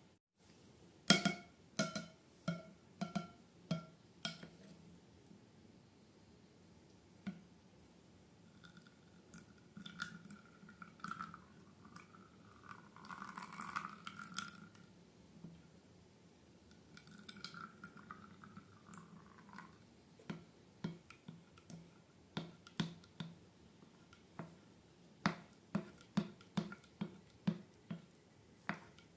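Slime being squished and pressed: runs of sticky clicks and squelches, about two a second, with a wavering squeak in the middle.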